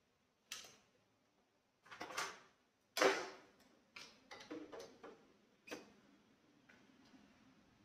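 Knocks and plastic clatter from handling a BPL Cardiart 9108 ECG machine as it is lifted and turned over: a handful of separate bumps, the loudest about three seconds in, with a quick run of smaller clatters just after.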